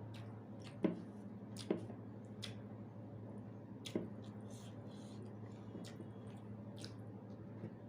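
Wet mouth sounds of eating rice and dal: soft squishes and smacks, with three sharper clicks about one, two and four seconds in, over a steady low hum.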